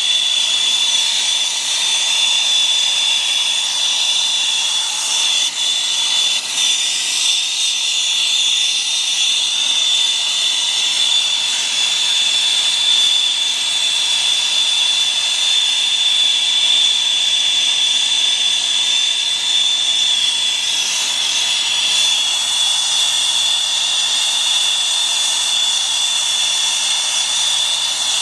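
Brazing torch flame heating a copper refrigerant line joint: a steady hiss with a continuous high whistle.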